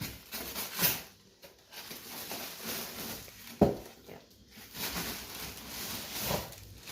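Plastic packaging rustling and crinkling as it is pulled off a boxed printer, with a sharp knock about three and a half seconds in.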